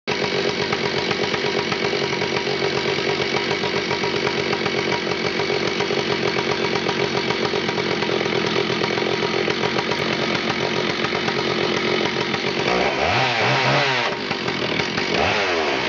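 Stihl 064 Magnum two-stroke chainsaw, 84.9 cc, running steadily, then revved up and back down twice near the end.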